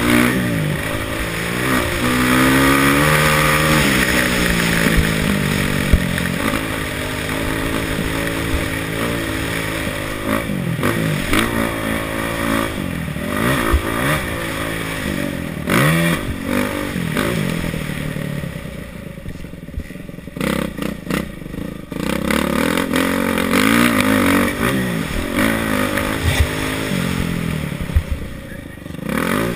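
Kawasaki KX450F's four-stroke single-cylinder engine under race throttle, revving up and falling back again and again. For a few seconds about two-thirds through it drops lower and goes choppy before picking up again.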